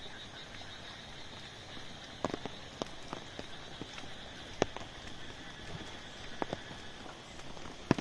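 Scattered raindrops tapping on an umbrella at irregular intervals, five or six sharp taps with the loudest near the end, over a steady high hiss of rain.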